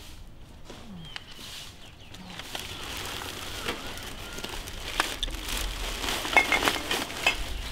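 Black plastic rubbish bag rustling and crinkling as it is handled. The crackling starts sparse, then thickens and grows louder in the last few seconds.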